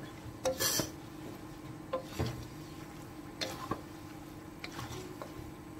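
Two wooden spatulas tossing and stirring noodles in a wok, giving several short scrapes and clacks at uneven intervals over a steady low hum.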